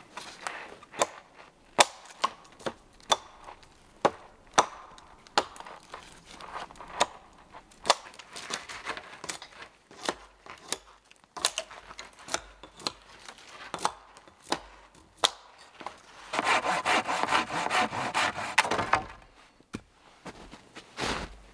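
Dry spruce poles being cleaned of their dead twigs with a blade: a string of sharp knocks and snaps, one every half second to second, as the brittle twigs are struck off. Near the end comes a louder dense run of quick rasping strokes on wood, lasting about three seconds.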